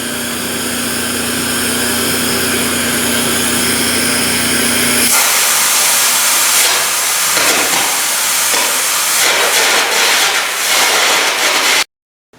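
Air carbon arc gouging on steel: a loud, harsh hiss of the arc and compressed-air jet blasting out molten weld metal, cutting out old welds. For the first five seconds a steady hum runs under the hiss; then it turns to a rougher, louder crackle that cuts off suddenly near the end.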